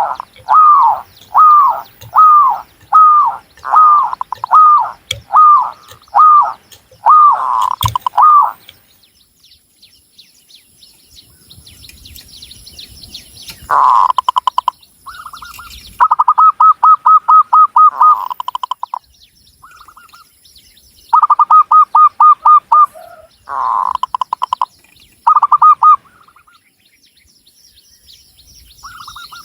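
Zebra dove (perkutut) cooing: a run of about a dozen short, evenly spaced coos, roughly two a second, for the first eight seconds. After a pause with faint high chirping of small birds, it goes on in short bursts of quick, rapidly repeated notes.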